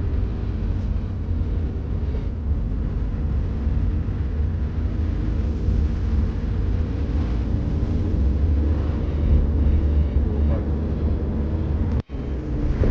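Steady rumble of a car driving along a road: engine and tyre noise, heavy in the low end. The sound cuts out abruptly for an instant near the end.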